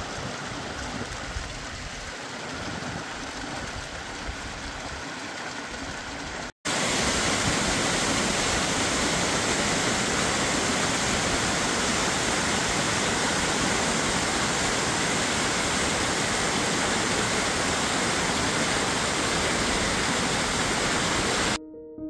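Running water from a small mountain brook splashing through wildflowers. After a cut about six and a half seconds in, a waterfall gives a louder, steady rush that stops abruptly near the end.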